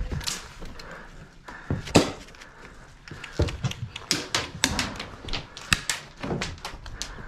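Footsteps and knocks on plywood inside a small wooden structure: irregular sharp knocks and thuds, the loudest about two seconds in, with a quicker run of them in the second half.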